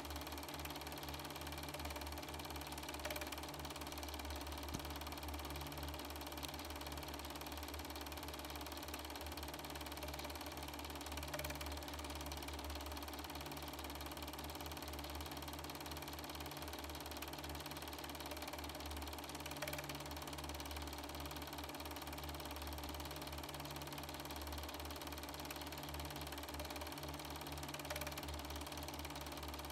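Super-8 film projector running, a steady mechanical whir of its motor and film transport, with a faint click about every eight seconds.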